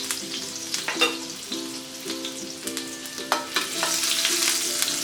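Chopped ginger sizzling in hot ghee in a pan, stirred with a spoon that knocks against the pan a few times.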